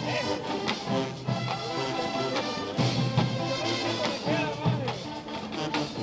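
Marching band playing live, its brass section of trumpets and trombones carrying the tune.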